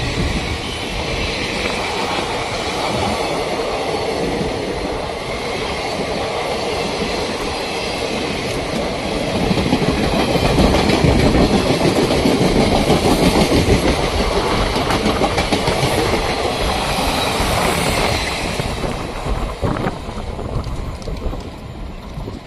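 ICF passenger coaches of an express train rolling past at speed, their wheels clattering over the rail joints. The clatter is loudest about halfway through, then fades near the end as the last coach passes and draws away.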